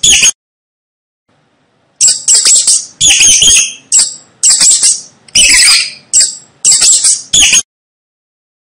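Mouse squeaking: a string of shrill, high-pitched squeaks in quick bursts, starting about two seconds in and stopping abruptly near the end.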